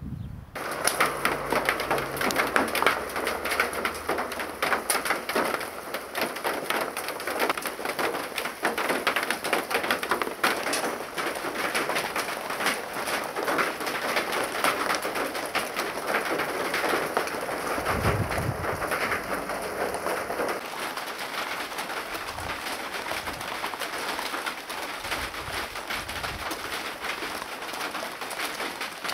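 Steady rain pattering on surfaces, a dense even hiss full of close drop clicks, starting abruptly about half a second in.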